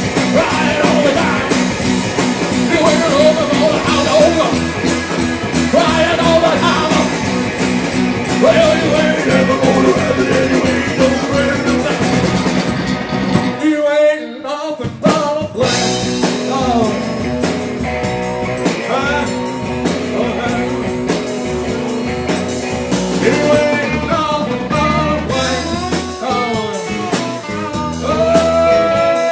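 Live rock and roll band playing loudly on electric guitars and drums, with a brief break about halfway through before the full band comes back in.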